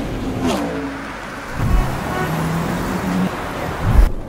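Road traffic noise mixed with background music, with a deep boom about a second and a half in and a louder one near the end.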